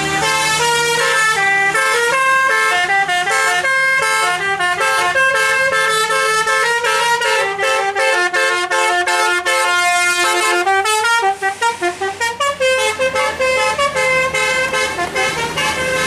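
Tour bus 'telolet basuri' melody horn playing a tune: a continuous run of pitched notes stepping up and down, with a quick stuttering run of short notes about eleven seconds in.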